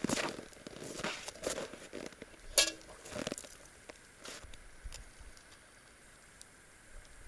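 A dog eating, chewing and crunching food in quick bursts over the first three seconds or so, with one sharp clink partway through.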